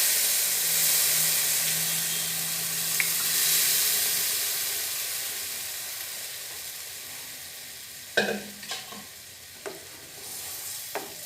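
Boiled chana dal poured into a pan of hot oil and spices, sizzling, the sizzle dying away steadily over several seconds. Near the end, a few sharp knocks of a spoon against the pan.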